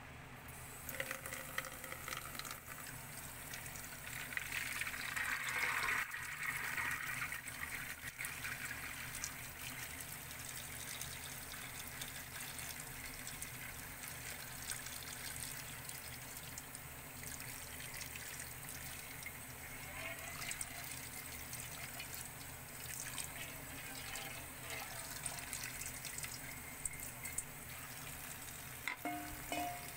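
Water pouring and splashing into a plastic colander of soaked mung beans, then tap water running onto the beans and draining through the mesh. Louder splashing about four to seven seconds in, with small clicks of beans and bowl throughout.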